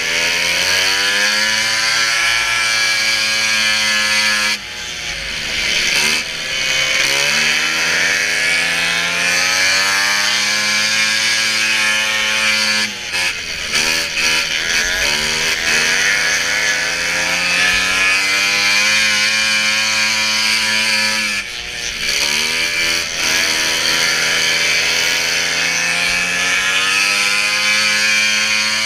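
Racing snowmobile engine at high revs, its pitch climbing under acceleration and dropping sharply as the throttle comes off about four and a half, thirteen and twenty-one seconds in and again near the end, then climbing again.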